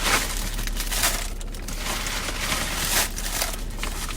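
Package wrapping crinkling and rustling in irregular bursts as a parcel is unwrapped by hand.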